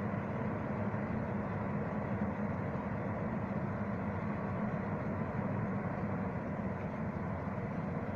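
Heavy diesel engine running steadily with a deep, even drone.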